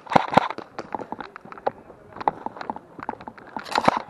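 Footsteps on dry, stony dirt and brush, irregular and fairly soft. They open with the last few rapid shots of an electric airsoft pistol and end with a louder clatter.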